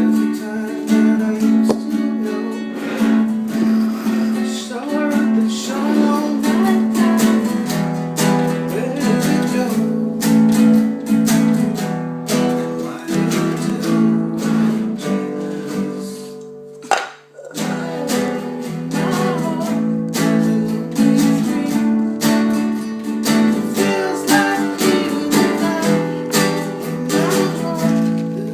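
Music led by a strummed acoustic guitar, with a brief break a little past halfway before it picks up again.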